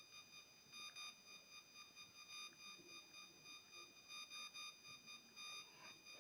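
Near silence, with a faint high-pitched electronic whine that keeps fading in and out.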